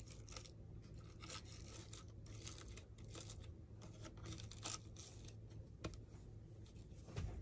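Quiet rustling and scratching of small craft pieces being handled and fitted by hand on a tabletop, in many short scratchy ticks over a low steady hum.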